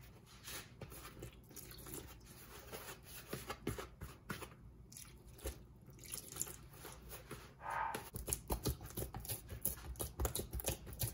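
A hand kneading flour and warm water into dough in a plastic mixing bowl: irregular soft clicks and rustles of crumbly dough being squeezed and pressed, getting busier and louder past the middle.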